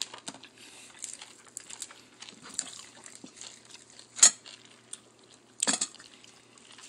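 Light clinks and clicks of a metal spoon and ceramic plates during a meal eaten by hand, with two louder short knocks about four and five and a half seconds in.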